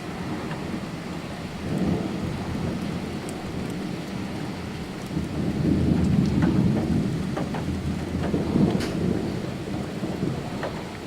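Heavy summer thunderstorm: steady rain with drops ticking close by, and thunder rumbling low, swelling about two seconds in and again through the middle.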